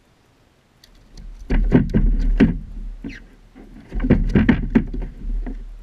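Knocking and rattling on a plastic fishing kayak's hull and fittings as the angler shifts and handles his gear: two spells of sharp knocks over a low thump, the first about a second in, the second near the four-second mark.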